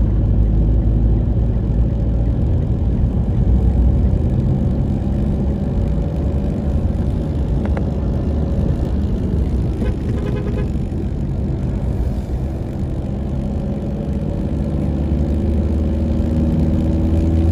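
Steady engine and road noise heard from inside a moving car's cabin, a low even rumble while driving at a constant pace.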